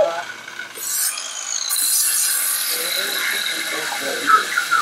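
Angle grinder with a cutoff disc cutting through a steel rail of miniature railway track: a brief burst about a second in, then a steady high-pitched grinding hiss with a whine over it.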